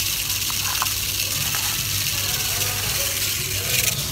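Fine play granules pouring from a scoop into a plastic sand-wheel toy's funnel: a steady hissing trickle that stops shortly before the end.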